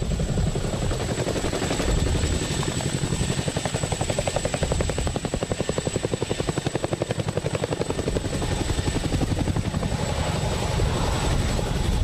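Boeing CH-47 Chinook tandem-rotor helicopter running, its rotor beat pulsing rapidly and evenly, most distinct around the middle, with a steady high whine above it.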